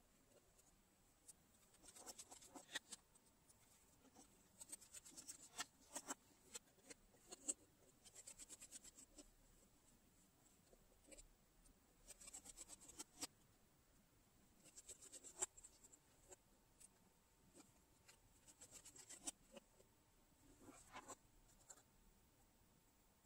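Faint precision screwdriver turning small screws out of a gimbal's plastic housing. Short spells of fine rapid clicking and scraping, each about a second long and repeated every few seconds, with a few single small ticks between them.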